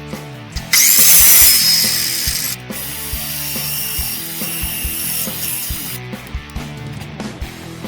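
Background music with a steady beat. About a second in, a loud hissing burst rises sharply and fades over about two seconds.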